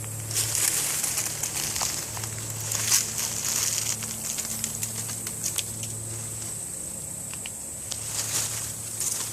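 Footsteps crunching through dry fallen autumn leaves, in uneven crackling steps.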